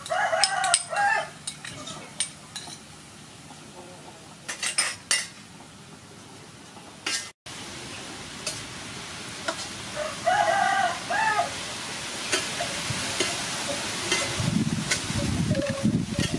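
Beef frying in a wok, with a metal spatula clicking and scraping as it is stirred and a sizzle that grows louder in the second half. A rooster crows twice, once near the start and again about ten seconds in.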